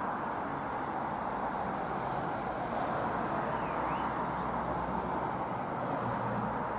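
Steady, even vehicle noise with no distinct events: road traffic and a Stadler KISS double-deck electric train approaching in the distance.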